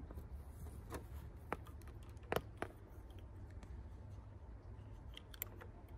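Scattered small clicks and taps of solar-panel pigtail connectors and multimeter test probes being handled and pushed together, the loudest a little over two seconds in, over a steady low rumble.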